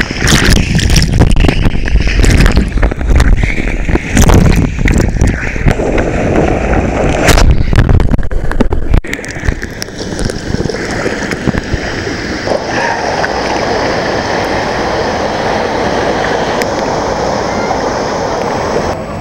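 Water rushing and splashing around a rider on a water slide, with heavy rumbling buffeting for about nine seconds. It then gives way abruptly to a steadier, quieter wash of water.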